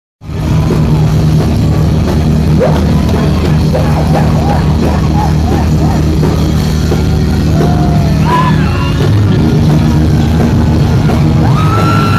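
Live heavy metal band playing loud, with a heavy, dense low end from bass and drums and short gliding high notes over it.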